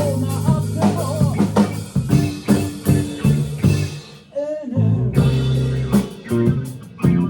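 Rock band playing an instrumental passage: drum kit, bass and guitar. About four seconds in, the band stops for half a second under a single bending note, then comes back in together.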